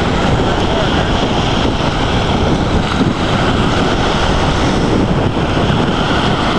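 Loud, steady wind noise buffeting the microphone, mixed with the wash of small waves breaking on a lakeshore.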